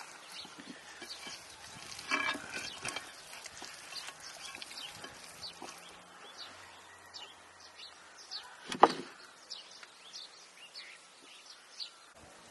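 Wet squelching and clicking of hands rubbing a spice marinade into raw rabbit pieces and potatoes in a clay bowl. A denser patch comes a couple of seconds in, and a single sharp knock about nine seconds in is the loudest sound.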